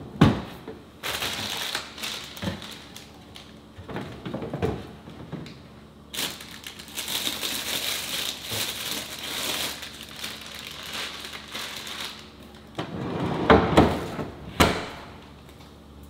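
Plastic produce bags rustling and crinkling as vegetables are handled in a refrigerator's pull-out vegetable drawer. There is a knock right at the start, and a few loud knocks near the end as the drawer slides shut.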